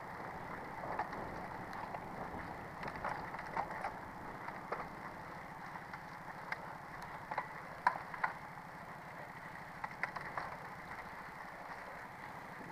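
Road bicycle's tyres rolling over a gravel dirt road, a steady rushing noise with scattered sharp clicks and rattles from the bike and loose stones.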